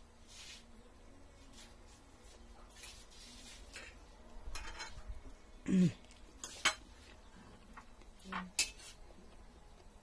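Spoon and fork clinking and scraping on ceramic plates during a meal, in scattered short strokes. About six seconds in, a louder brief sound slides down in pitch.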